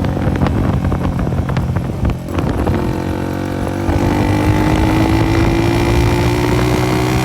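Honda CG 125's single-cylinder four-stroke engine running through a burst silencer, a loud open-exhaust note. It crackles and pops sharply for the first couple of seconds, dips briefly, then settles into a steady note that rises slowly in pitch as the bike pulls.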